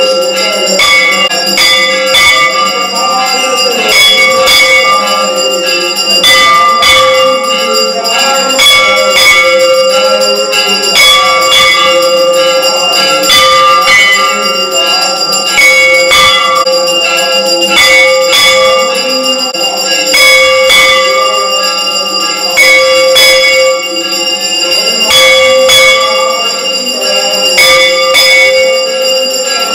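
Metal temple bells ringing for an aarti, struck over and over in a steady rhythm so that their ringing tones overlap and hold on continuously.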